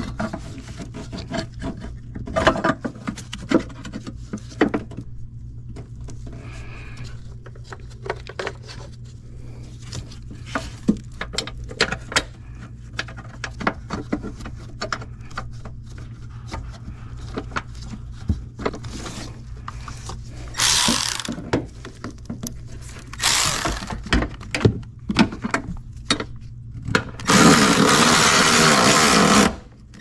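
Hand work on a truck's engine-bay parts, with scattered clicks, taps and scrapes of fittings and fasteners over a steady low hum, as a new electric vacuum pump is fitted. A cordless ratchet then runs three times: twice for about a second each, then for about two seconds near the end, driving in the pump's fasteners.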